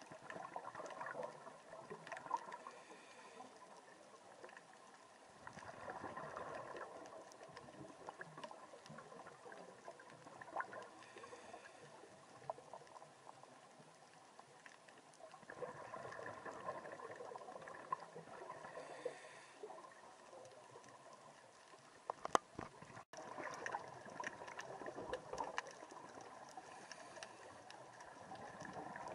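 Scuba diver breathing through a regulator underwater: bursts of exhaled bubbles lasting a few seconds, four times, with quieter gaps between. A couple of sharp clicks about three quarters of the way through.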